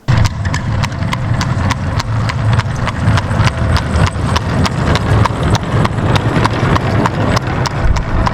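Horse hooves clip-clopping at a walk, about four sharp hoof strikes a second, over a steady low rumble.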